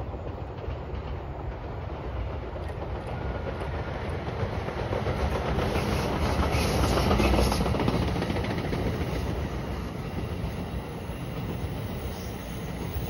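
NJ Transit electric locomotive and double-deck coaches passing on the North Jersey Coast Line, a steady rush of wheels on rail. It grows louder to a peak about seven seconds in, then eases as the coaches roll by.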